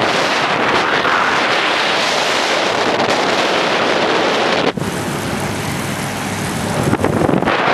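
Wind buffeting the microphone of a bicycle moving along at speed, a steady loud rushing. About halfway through it drops suddenly and runs a little quieter, then swells again near the end.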